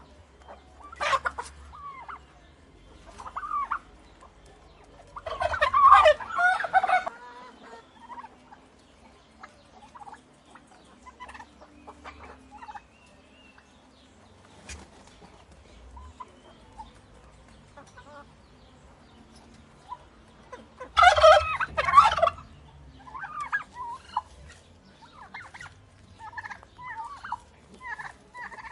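Domestic turkeys gobbling: two loud rattling gobbles, one about six seconds in and one past twenty seconds, with a sharp call near the start and quieter short calls and clucks between.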